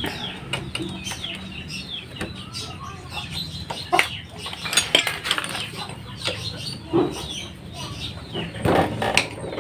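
Chickens clucking repeatedly, with several sharp metallic clinks of tools and engine parts being handled.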